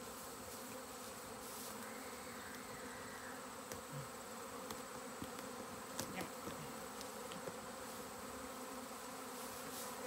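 Honeybee swarm in flight: a steady hum of many bees on the wing, with a few faint clicks.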